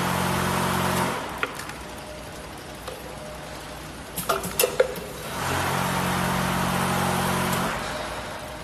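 Scoop feeding machine's vibratory bowl feeder running in spells: a buzzing hum with a rattling hiss for the first second, and again for about two seconds in the second half. A quick cluster of sharp mechanical clicks comes between the two spells.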